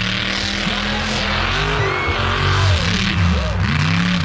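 A big off-road vehicle's engine revving up and down hard several times over a loud rushing noise.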